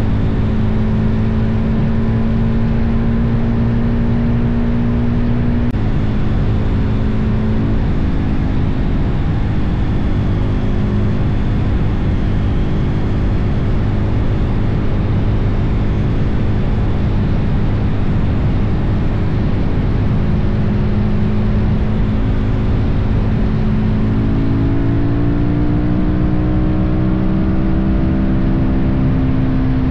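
Suzuki DR-Z400's single-cylinder four-stroke engine running while the bike is ridden on the road, under heavy wind rumble on the microphone. The engine pitch drops a little about six and again about eight seconds in, and rises again near the end.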